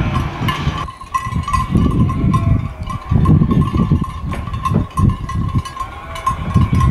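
Sheep bell ringing in a steady, repeated clinking, with wind rumbling in gusts on the microphone.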